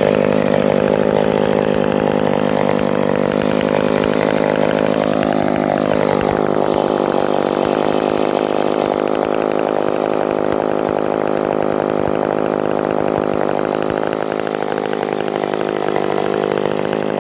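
Yellow McCulloch two-stroke chainsaw engine running steadily, with one brief rise and fall in speed about five seconds in.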